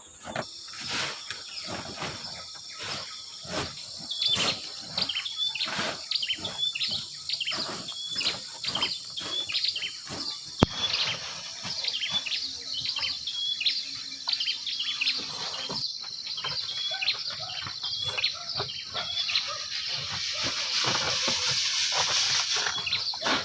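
Outdoor rural ambience: short high chirps repeat about twice a second over close, irregular rustling and clicking. Near the end a steady high insect hiss grows louder.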